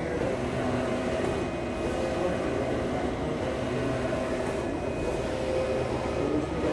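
HP Latex 800W large-format printer running while printing: a steady mechanical whir and hum with a faint regular rise and fall every couple of seconds.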